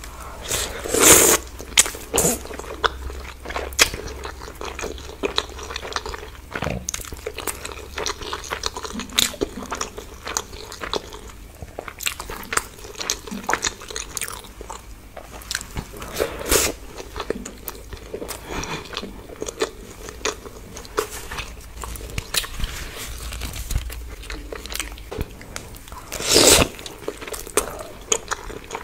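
A person eating mutton curry and chicken biryani: a steady run of small biting and chewing clicks, with a few louder bites about a second in, past the middle and near the end.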